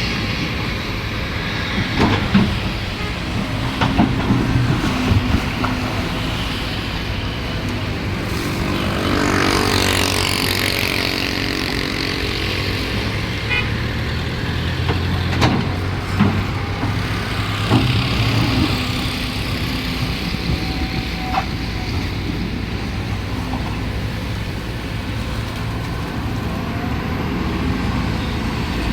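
Heavy diesel machinery running steadily, with a hydraulic excavator's engine and a concrete truck at work. There are occasional sharp metallic knocks, and the engine revs up for a few seconds about nine seconds in.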